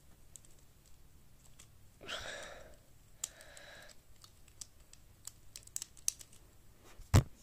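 Plastic 3x3 puzzle cube being turned by hand: a run of small scattered clicks as the layers rotate, with two short louder rushes of noise about two and three seconds in. A single sharp thump near the end is the loudest sound.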